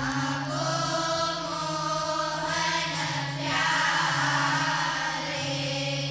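Devotional bhajan sung by a group of voices in chorus over a steady held drone accompaniment.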